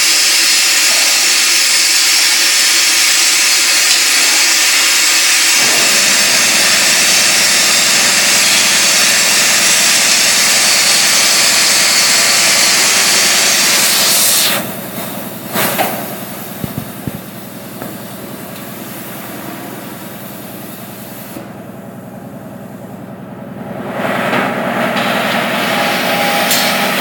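Spiral duct forming line running with a loud, steady hiss-like mechanical noise. About fourteen seconds in it drops sharply quieter, with a couple of brief clanks, then rises back to full level near the end.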